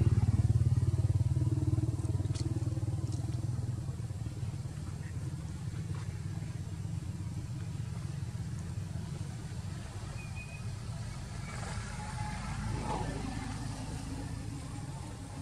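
Motor vehicle engine running close by, loudest at the start and fading over the first few seconds as it moves away, leaving a steady low rumble.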